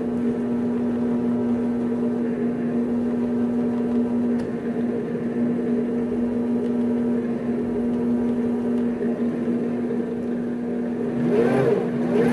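Grizzly G0765 mini-lathe spindle running with a steady motor and gear hum, while a rag is pressed against the spinning chuck as a brake to put a cutting-like load on the spindle. Near the end the pitch wavers up and down.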